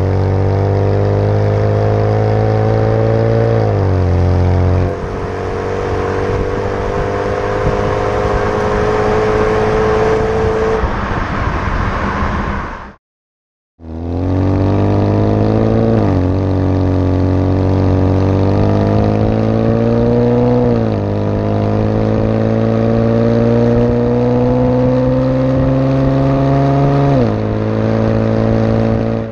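Chevrolet Camaro NPP dual-mode exhaust heard at the tailpipes under slow, increasing acceleration: the exhaust note climbs steadily in pitch and drops back at each upshift. After a brief cut about 13 seconds in, the same run is heard with the exhaust fuse pulled, which holds the exhaust valves open.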